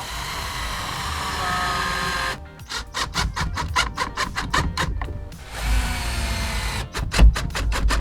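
Wood being sawn in fast, even strokes, about seven a second, in two runs separated by a short pause, with background music.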